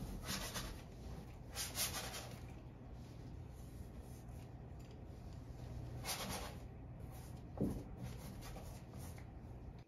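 Paintbrush strokes on stretched canvas: three short scratchy swishes, two close together at the start and one about six seconds in, over a low steady hum, with a soft bump shortly after the last stroke.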